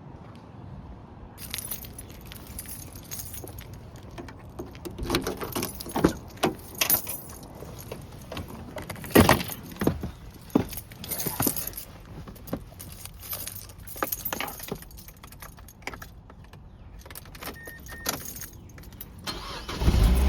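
Keys jangling and rattling in irregular bursts, with knocks and handling noises. A loud low steady hum comes in near the end.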